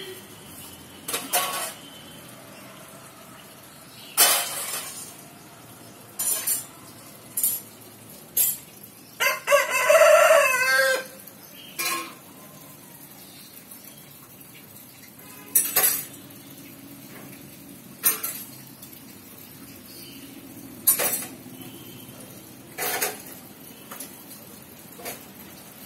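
A rooster crows once, about nine seconds in, for about two seconds. Short sharp clicks sound now and then throughout.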